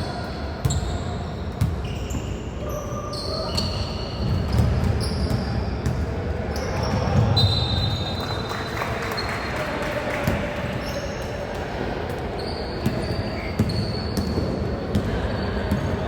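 Basketball game play in a gym hall: a ball bouncing and thudding, short high squeaks from sneakers on the court, and players' voices echoing in the hall.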